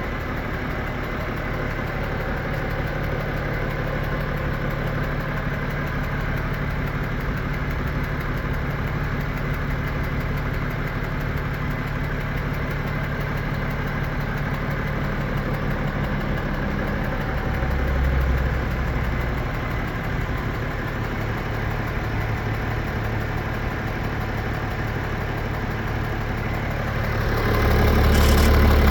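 BMW M57N2 3.0-litre inline-six common-rail diesel idling hot with a steady, rhythmic knock. The knock appears only when the engine is warm and grows louder the hotter it gets; the owner has ruled out the vacuum pump, timing chains and balancer and wonders about an injector, the high-pressure fuel pump or a piston. The sound gets louder near the end.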